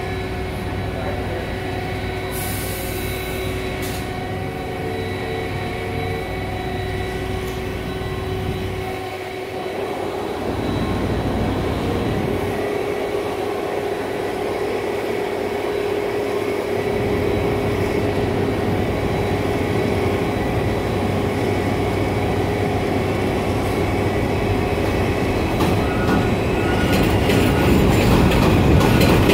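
New York City subway train running, with steady whining tones over the rumble of wheels on rail, getting louder toward the end as a train comes closer.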